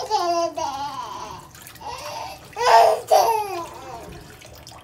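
A baby's voice: short fussy cries and whimpers in several bursts, the loudest pair about three seconds in, over running tap water.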